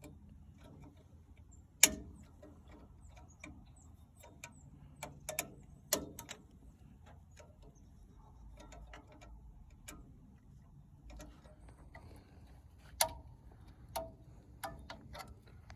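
Irregular metallic clicks and clinks of hand tools and brake parts being handled while a drum brake is taken apart, with a sharp knock about two seconds in and another near thirteen seconds.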